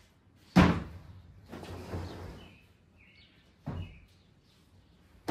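Wooden bed frame being loaded into a pickup truck bed: a loud knock about half a second in, a scraping slide, and another knock later on. Birds chirp briefly in the middle.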